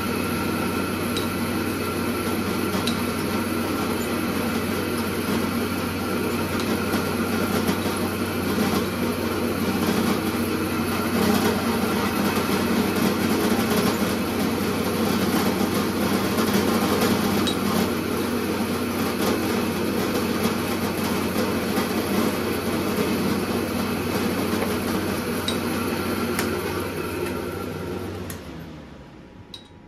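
Drill press motor running with an end mill in a three-jaw chuck, milling aluminium plate as the XY table is cranked along. It winds down and stops near the end.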